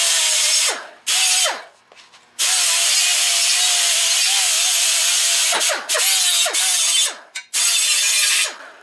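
Small air-powered angle grinder with a 2-inch Roloc 36-grit disc grinding the cut edge of a steel quarter panel, cleaning off slag to prepare the edge for welding. It runs in about five on-off bursts, the longest about three seconds, each a steady whine over a hiss, and the pitch drops away each time the trigger is let off.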